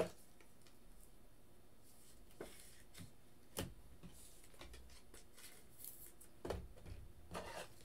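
A handful of faint, short clicks and taps of trading cards being picked up and handled on a tabletop, the sharpest near the middle.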